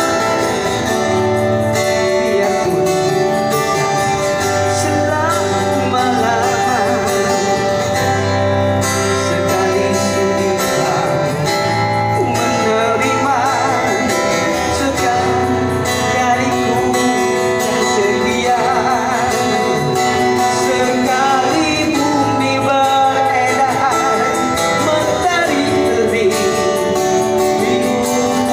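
Live band music: a steady bass and sustained chords under a lead melody that wavers in pitch, recurring every few seconds, with no lyrics transcribed.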